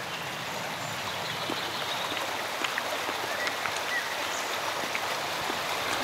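Stream water flowing steadily, an even rushing babble.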